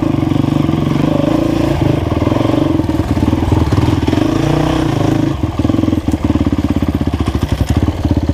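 Enduro dirt bike engine running at low revs at slow trail speed. About five seconds in it drops to a slow, uneven chug with a few sharp knocks, the sound of the bike being eased along on a slipped clutch.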